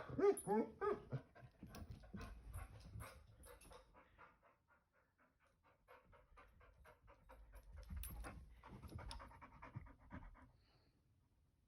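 A dog panting in quick, short breaths, excited and agitated by birds outside. The panting fades out after about three seconds and starts again near the end.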